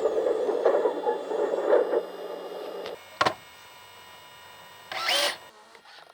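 Small electric motors and gears of radio-controlled model machinery whirring for about two seconds, then dropping away. A sharp knock comes a little after three seconds, and a short whirring whine near the end.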